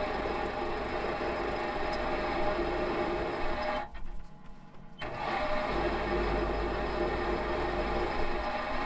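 Metal lathe running steadily while turning a small part held in a four-jaw chuck. The lathe stops briefly about four seconds in and starts again about a second later.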